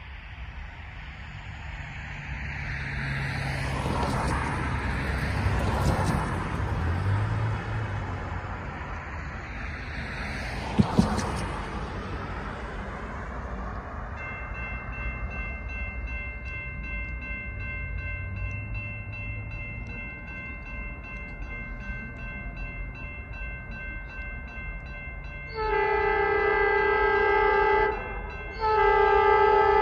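Road traffic passing in the first half, then from about halfway a grade-crossing warning bell ringing steadily. Near the end a freight locomotive's air horn sounds two long blasts as the train approaches the crossing.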